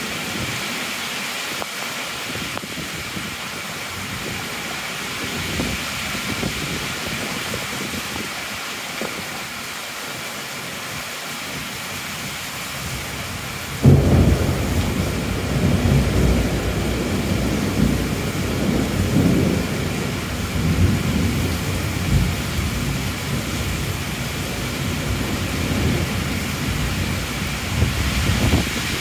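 Heavy rain falling steadily. About halfway through, a sudden crack of thunder breaks in and rolls on as a low rumble that swells and fades several times over the rain.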